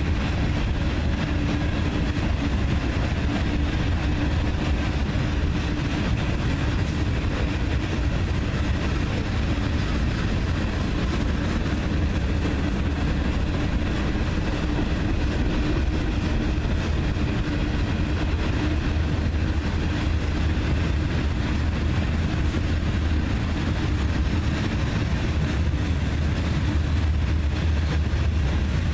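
Freight train cars (covered hoppers, boxcars and tank cars) rolling past on the rails: a steady, unbroken rumble of steel wheels on track.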